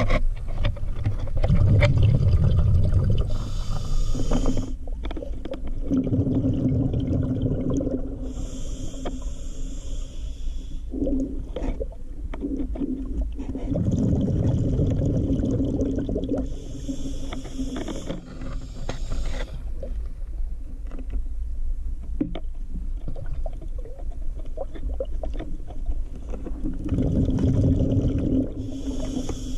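Scuba regulator breathing underwater, over several slow breaths: a hissing inhale through the regulator alternating with a rumbling burst of exhaled bubbles. A steady low hum runs underneath, with a few faint clicks and scrapes.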